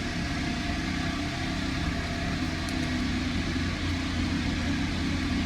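An engine running steadily at an even speed, a constant low hum with a noisy rumble over it.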